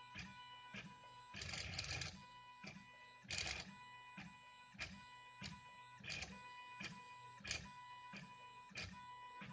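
Stepper motors of a 3D printer converted to draw with a ballpoint pen, whining in short pitched tones that stop and start as the pen head makes short strokes. Clicks come at roughly one and a half a second, with two longer bursts of noise about one and a half and three and a half seconds in.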